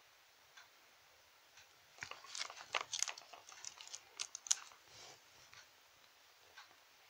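Small clicks, taps and rustles of plastic toy figures and doll clothing being handled and moved, in a flurry a couple of seconds in that ends about two seconds later.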